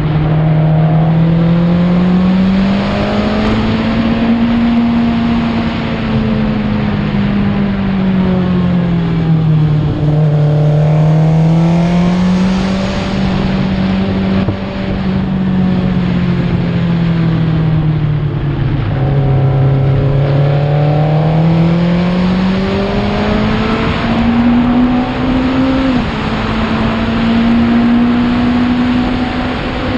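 Racing sidecar outfit's engine heard on board at speed. Its pitch rises and falls in long swells as it accelerates and eases off through the corners, with one sudden step down in pitch near the end, over a steady rush of wind.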